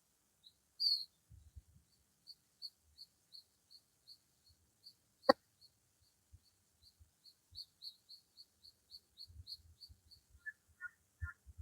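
A bird repeating a short high chirp about three times a second, on and on. A single sharp knock sounds a little past halfway, and a few lower calls come near the end.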